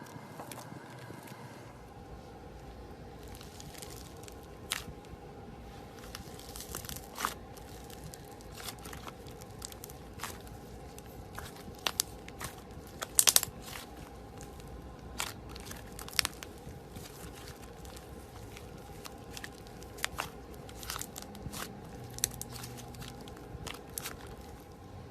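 Slime being worked by hand, giving irregular crackles and pops, with a louder cluster of snaps about halfway through.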